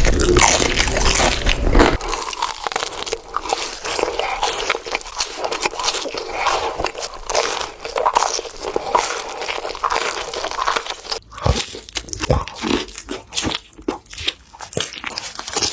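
Close-miked eating: crunchy bites and chewing of crisp fast food, a dense crackle of small sharp cracks. A deeper low rumble underneath stops abruptly about two seconds in, and the cracks come sparser and sharper in the last few seconds.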